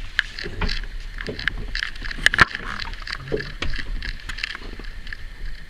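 A man snoring while asleep in a small fishing boat, under water lapping and light knocks against the hull.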